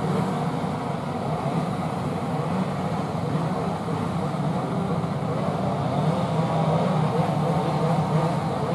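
A pack of 125 cc two-stroke underbone racing motorcycles running together on a starting grid, many engines idling and revving up and down at once into a dense, steady mix of rising and falling engine notes.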